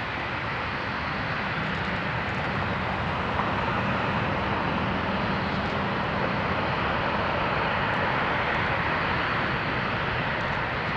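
Steady rushing jet-engine noise from airliners at the airport, growing slightly louder over the first few seconds and then holding level.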